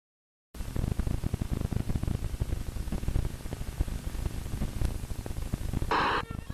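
Surface crackle and hiss of an old film soundtrack, with many small low pops and no other sound. Near the end comes a brief louder burst of noise lasting about a third of a second.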